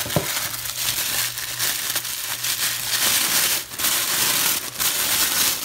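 Tissue paper crinkling and rustling as hands pull it out of a cardboard box and unwrap it, rising and falling irregularly throughout.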